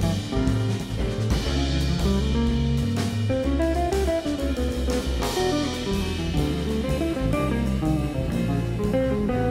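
Live jazz band playing an instrumental passage: a semi-hollow electric guitar leads with a line of single notes over electric bass, keyboard and drum kit with cymbals.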